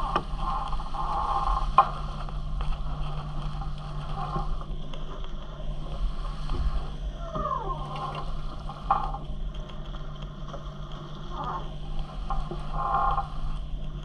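Leopard 42 sailing catamaran under way: water rushing and washing against the hulls over a steady low hum, with a sharp knock about two seconds in and a few short gliding creaks and squeaks from the boat in the middle and near the end.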